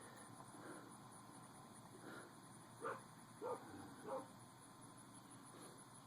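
A dog barking faintly three times, about half a second apart, over near silence.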